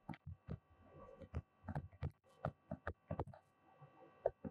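Stylus tapping and scratching on a tablet screen while words are handwritten: a quick, irregular series of light taps, over a faint steady electrical hum.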